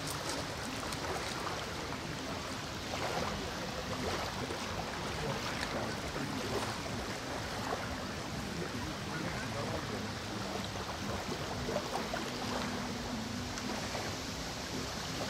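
Steady wind and river water noise at the bank, with a faint low hum that comes in after about ten seconds.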